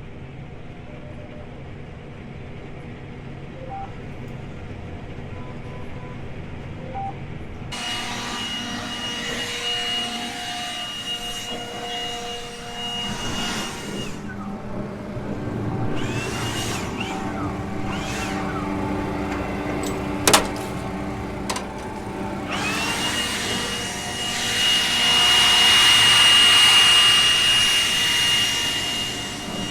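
Combine harvester machinery running steadily, heard from the cab. A loud hiss with a high steady whine comes in about a quarter of the way through, stops about halfway, then rises in again louder near the end; a sharp click sounds about two-thirds of the way through.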